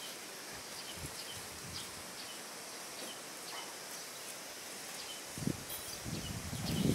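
Leafy watermelon vines rustling as they are handled and pulled, starting about five and a half seconds in and growing louder, over a quiet garden background of a steady high hiss and short, faint bird chirps every second or so.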